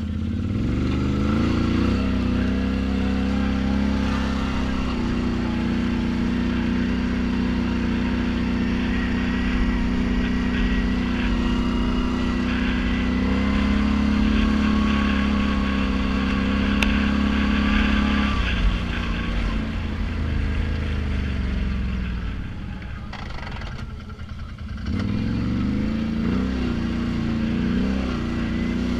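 Snorkeled ATV engine heard from the rider's seat, revving up in the first couple of seconds and then holding a steady pitch under way. About two-thirds through, the throttle eases off and the engine drops lower, then it revs up again a few seconds before the end.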